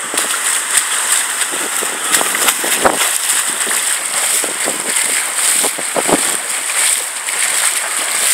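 Storm wind rushing through the trees with rain, a steady loud hiss. It is broken now and then by short sharp knocks or splashes, the loudest about three and six seconds in.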